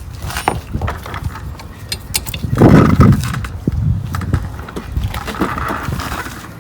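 Light clicks and knocks of metal tools and parts being handled at a wheel hub, with one louder dull rumbling thud about two and a half seconds in.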